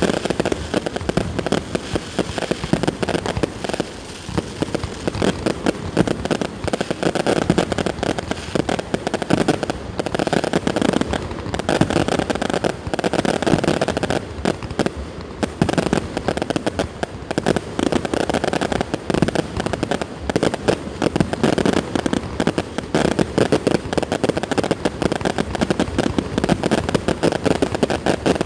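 Fireworks display going off without a break: a dense stream of bangs from bursting aerial shells mixed with crackling.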